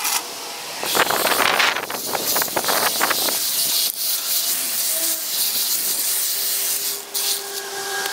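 Overgrown brush being cut back and pulled aside: an irregular run of loud rustling, scraping and snapping from leaves and branches, starting about a second in and easing off near the end.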